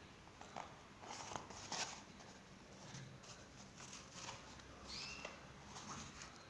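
Faint rustling and light handling of fabric and a zippered pouch, with scattered small clicks. A short, high chirp comes about five seconds in.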